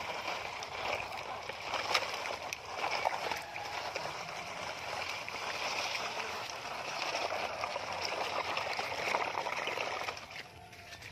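Shallow, muddy stream water running and sloshing around plastic toy dump trucks as they are pulled through it, with scattered small knocks. The water sound drops away briefly near the end.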